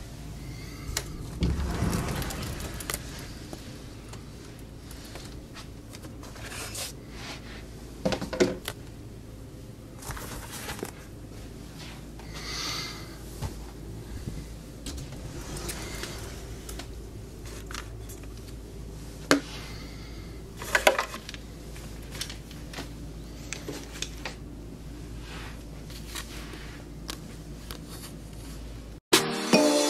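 Indoor handling noises: rustling, scattered clicks and a few sharper knocks as a handheld camera and objects are moved around, over a low steady hum.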